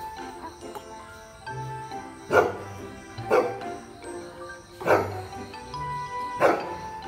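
Golden retriever barking up into a tree at a cat, four single barks spaced a second or so apart, over background music.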